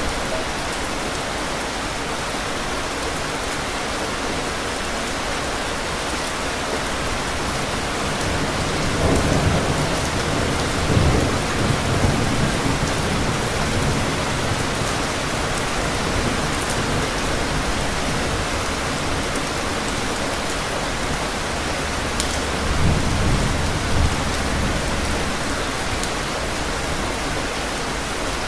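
Steady heavy rainfall during a thunderstorm. A long roll of thunder rumbles about nine seconds in, peaking a few seconds later, and a shorter rumble follows about twenty-two seconds in.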